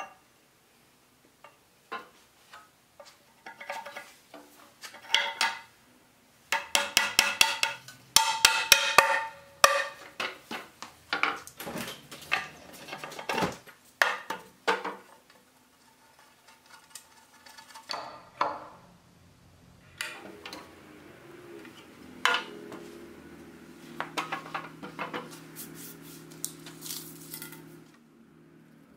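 Hand hammer striking an iron bracket fitted onto a wooden wagon beam. The metal rings with each blow. The blows come in a quick run of many strikes about a third of the way in, then fewer and more spread out.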